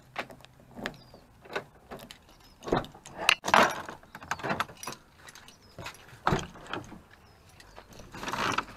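Keys jangling and a key working the driver-door lock of a Toyota Tacoma pickup, then the door unlatching and opening and the door-panel switches being pressed: a string of separate clicks and knocks.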